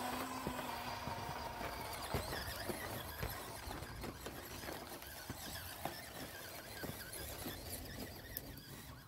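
Small electric RC rock crawler driving over dry grass stubble: a thin, wavering whine from its motor and gears with scattered light crackles and ticks, growing fainter as it moves away.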